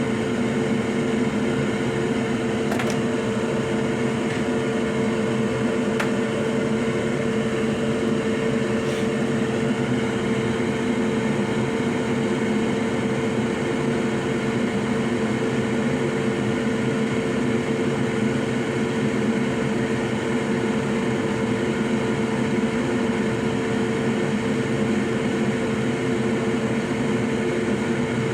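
Hot air rework station blower running with a steady whine while an old HDMI port is desoldered from a PS5 motherboard, with a few faint clicks in the first several seconds.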